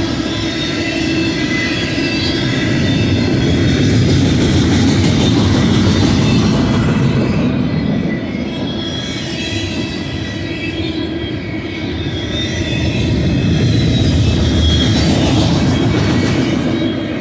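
BNSF double-stack intermodal well cars rolling past on the mainline: a steady, loud rumble of steel wheels on rail, with faint high wheel squeal over it. It grows louder twice and eases in between as the cars go by.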